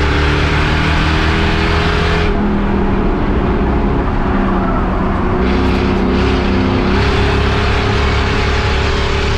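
Race car engine running hard at sustained high revs. Its pitch drops a little about two seconds in and climbs back about seven seconds in.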